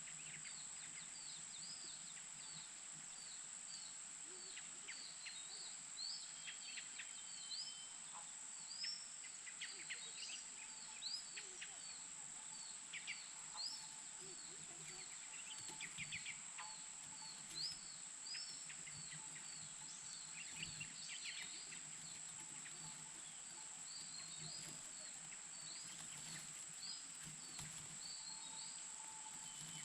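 Repeated thin, high bird chirps, about two a second, with scattered quick downward calls, over a steady high insect drone.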